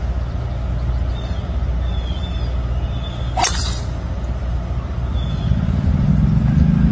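Driver striking a teed golf ball: a single sharp crack about three and a half seconds in, over a steady low outdoor rumble.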